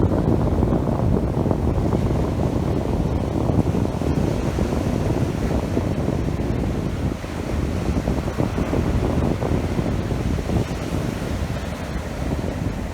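Strong wind buffeting the microphone over the sound of heavy sea waves, a dense, unbroken rush throughout.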